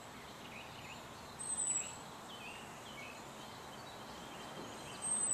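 Outdoor background noise with birds calling. A short, high-pitched chirp recurs about every two to three seconds, with a few fainter, lower calls that slide downward in pitch in between.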